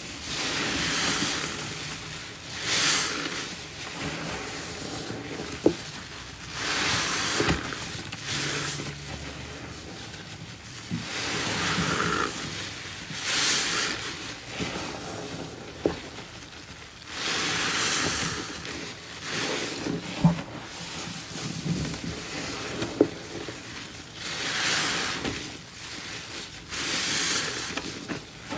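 Gloved hands squeezing and kneading grout sponges in a thick, foamy paste of pine cleaner and Comet scouring powder: a wet, crackling squelch with each squeeze, repeating every two to three seconds, with a few sharp clicks.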